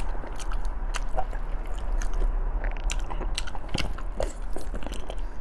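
Close-miked eating sounds: a person biting and chewing stewed pork trotter, with irregular wet smacking clicks.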